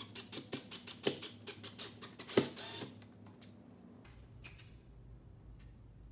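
Hand ratchet clicking in quick strokes as a lag bolt is driven through a TV wall-mount bracket into a wall stud, with one louder metal clack about two and a half seconds in. The clicking stops after about three seconds.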